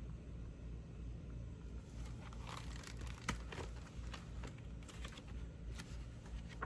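Pages of a picture book being turned and handled: soft paper crinkles and small clicks, over a low steady hum.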